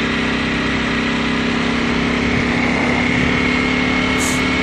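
2018 Ducati Panigale V4 Speciale's V4 engine running steadily while riding, its pitch edging up slightly midway. A short hiss sounds near the end.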